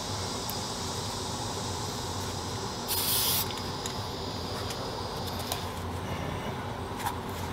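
An aerosol spray-paint can gives one short hiss of about half a second, roughly three seconds in, over steady background noise. A few light ticks follow near the end.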